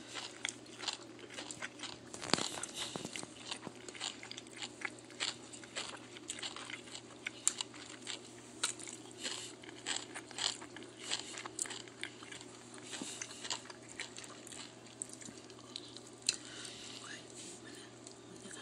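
A person chewing and biting crunchy food, with many small irregular crunches and a louder crunch about two seconds in.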